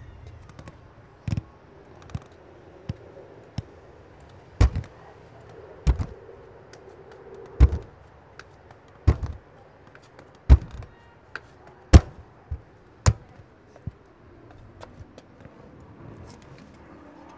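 Manual wheelchair being bumped down concrete steps: a series of sharp thuds and metal clanks from the wheels and frame, about a dozen, irregularly spaced roughly a second apart, stopping a few seconds before the end.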